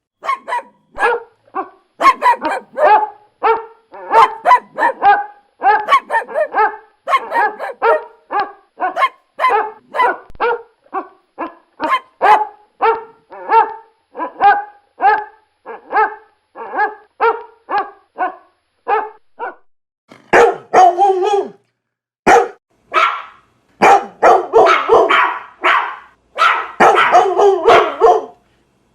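Dog barking over and over at a steady pace of about two barks a second. From about twenty seconds in, the barking turns harsher and comes in quick clusters.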